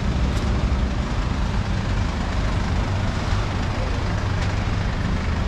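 Steady rumble of London street traffic.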